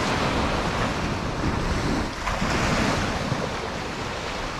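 Shallow surf washing in and out on the beach, with wind buffeting the microphone.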